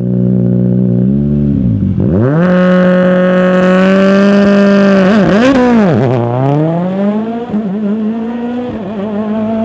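Rally car engine running hard, its pitch dipping sharply and recovering about two seconds in and twice more around five to six seconds in, then climbing again.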